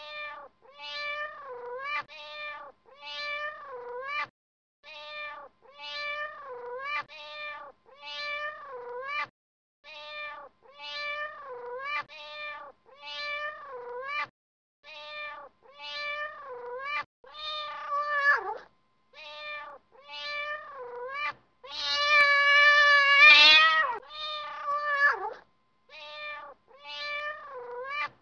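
A cat meowing over and over: short meows about one a second, each dipping in pitch, with a longer, louder meow about three-quarters of the way through.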